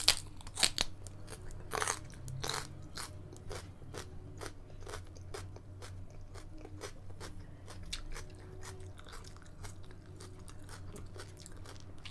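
Close mouth sounds of a crisp raw vegetable being bitten and chewed: a few loud crunches in the first three seconds, then steady crunchy chewing at about two crunches a second that grows fainter.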